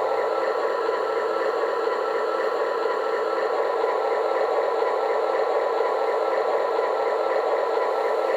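Recorded diesel locomotive engine sound from a QSI Maxx Traxx model-train sound unit, running steadily with little bass.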